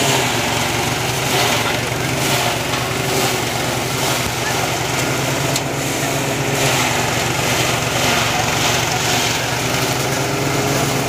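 Engine-driven paddy thresher running steadily: a constant drone under a loud rushing hiss that swells about once a second.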